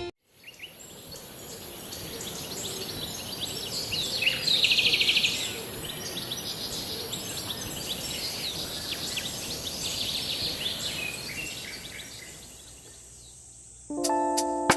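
Woodland summer ambience: many small birds chirping over a steady high-pitched insect drone, with a brief buzzy trill about four to five seconds in. It fades out near the end.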